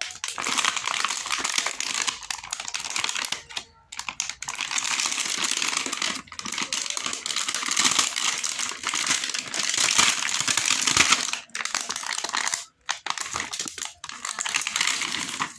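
Plastic snack and candy wrappers crinkling and rustling as they are handled, in dense crackling spells of a few seconds broken by short pauses.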